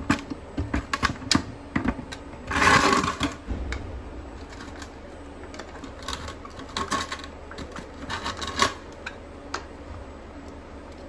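Metal clicks, taps and scraping of a hand tool working the lower drain screw out of a Yamaha 9.9 hp outboard's gear case. A rattling scrape of about a second comes some two and a half seconds in, and there are further runs of quick clicks later on.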